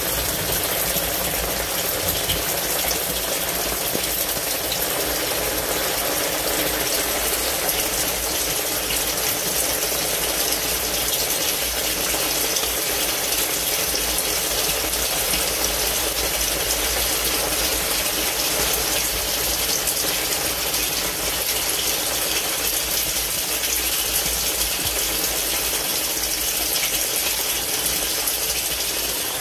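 Torrential rain and a steady rush of water pouring through a yard drainage system running full.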